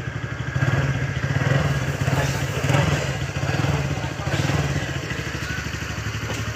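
TVS Ntorq scooter's single-cylinder engine running just after start-up, with a few small rises in revs over the first few seconds before settling to a steady idle.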